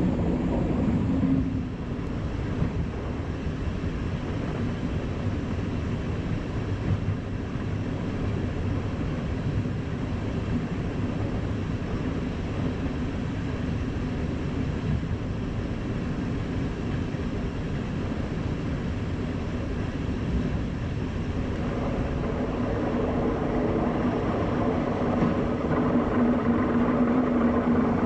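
Class 471 electric multiple unit running along the line: a steady rumble of wheels and running gear on the track. About two-thirds of the way through, a low steady hum comes in and grows louder.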